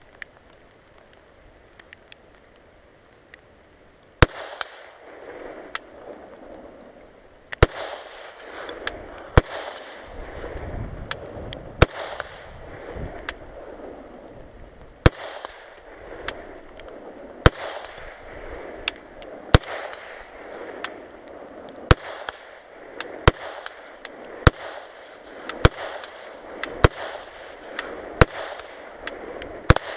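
Gunshots: after a few quiet seconds with faint clicks, a gun is fired about twenty times at a steady pace of roughly one shot a second, each shot ringing out with a short echo.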